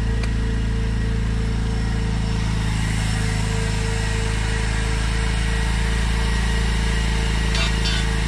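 A small engine running steadily with a constant low hum. Near the end, a few light clacks as a plastic under-seat storage tray is set down on asphalt.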